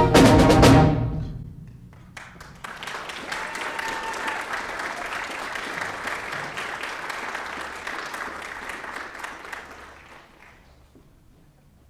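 A school band's closing chord is cut off about a second in and rings out briefly in the hall. After a short pause the audience applauds, then the applause dies away near the end.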